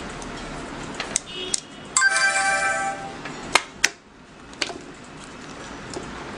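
Sharp plastic clicks and knocks of a hard-shell glasses case being handled and snapped open. About two seconds in, an electronic chime of several steady tones sounds for about a second.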